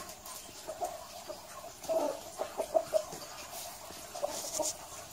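Muscovy ducks giving short clucking calls, a quick run of them about two to three seconds in, with scattered small clicks and rustles between them.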